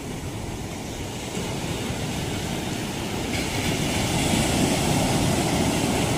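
Sea surf: waves breaking and washing up the beach, a steady rush that grows louder, with a stronger breaker about three seconds in.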